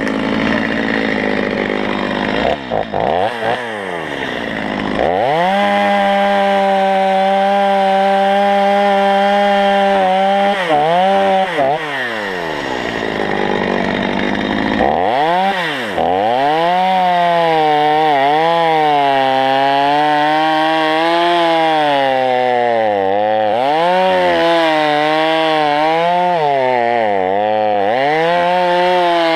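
Chainsaw engine running at high revs, falling off briefly a few times as the throttle eases. Its pitch then wavers up and down under load as the chain cuts into wood.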